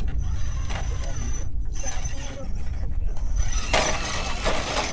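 1/10-scale RC rock crawler's electric motor and gearing whining high in short runs as it drives, with a few scraping noises, the loudest nearly four seconds in, over a steady low rumble.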